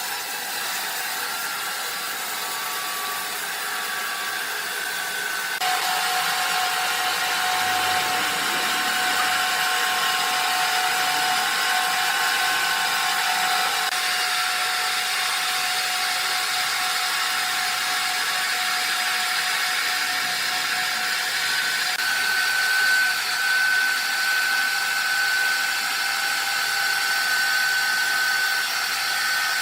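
Sawmill saw machinery running with a steady high whine over a noisy hiss. It gets louder about six seconds in, and the pitch of the whine shifts a couple of times later on.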